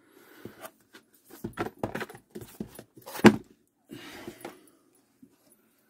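Cardboard drone box being handled: a string of taps, knocks and rustles, with one sharp knock about three seconds in as it is set down on the silicone work mat.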